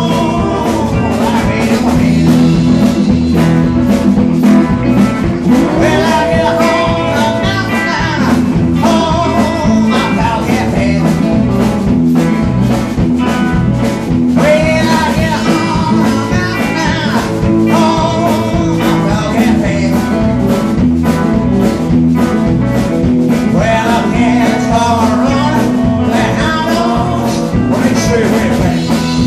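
Live rock and roll band in full swing: electric guitars and drums driving a steady beat, with a singer on the microphone.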